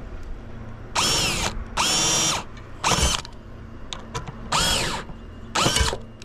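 Power drill driving a small screw through a metal ridge-tile clip into the wooden ridge batten, in five short bursts, the motor speeding up and winding down each time.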